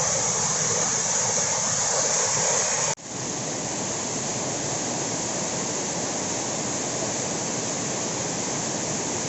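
Waterfall: a steady, dense rush of falling water. It breaks off abruptly about three seconds in, then carries on a little quieter.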